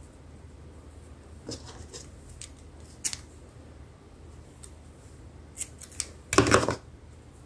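Scissors cutting during craft work: a few scattered short snips and clicks, then a longer, louder cut near the end.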